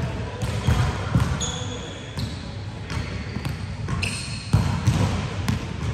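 Indoor volleyball play in a large echoing hall: the ball being struck and bouncing on the court several times, with short high squeaks of shoes on the floor and voices in the background.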